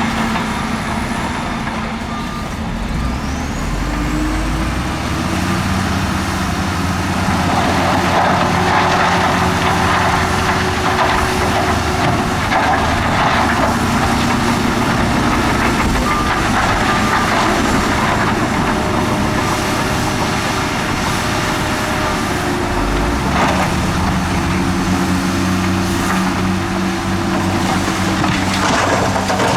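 Heavy diesel earthmoving machinery at work: engines running steadily, their pitch rising and falling under load. From about seven seconds in comes a gritty scraping rattle of dirt and rock being moved.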